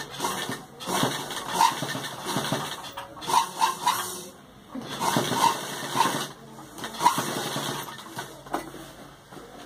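Sewing machine stitching through fabric in bursts of a second or two, stopping briefly between runs, and falling quiet near the end.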